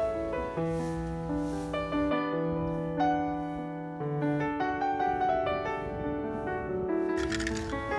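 Background piano music, single held notes and chords changing every second or so, with a short burst of noise about seven seconds in.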